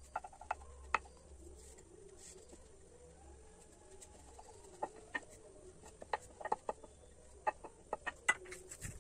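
Wooden rolling pin rolling out momo dough on a round rolling board, with a scatter of light clicks and knocks as the pin touches down on the board and is set against it. The knocks come sparsely at first and more often in the second half.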